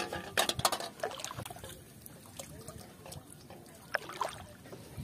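Splashing and trickling water as hooked fish are landed in shallow water: a cluster of sharp splashes and knocks in the first second and a half as a fish flaps in an aluminium bowl, then quieter watery noise, and two more splashes about four seconds in as a hooked fish thrashes at the surface.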